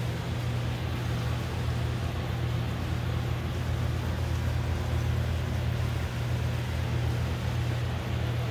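A steady low machine hum with an even hiss, unchanging throughout.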